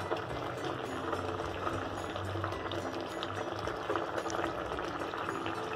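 Fish head curry bubbling steadily at the boil in a clay pot.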